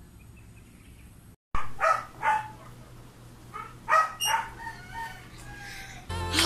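Short animal calls, a few in quick succession, starting about one and a half seconds in after a quiet stretch.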